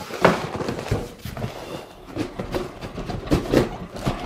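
A large cardboard box being lifted and slid up off its contents, the cardboard scraping and rustling with several short knocks. The loudest knocks come just after the start and again about three and a half seconds in.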